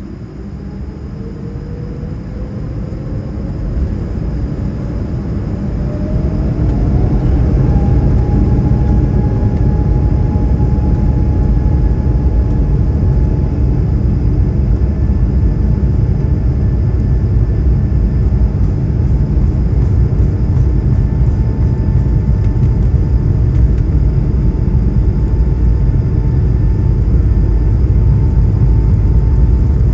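Jet airliner's engines spooling up to takeoff thrust, heard from inside the cabin. A whine rises in pitch over the first eight seconds or so and then holds steady, while a low rumble from the takeoff roll grows louder along with it.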